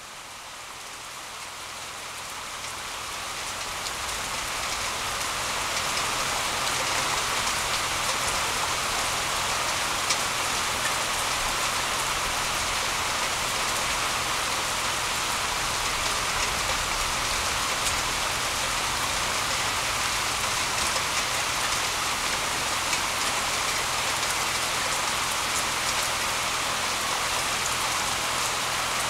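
Rain falling steadily, a dense even hiss of drops with a few sharper drip ticks close by. It fades in over the first few seconds.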